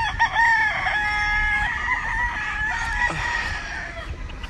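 Gamefowl roosters crowing, several long crows overlapping at different pitches through the first three seconds, then dying away.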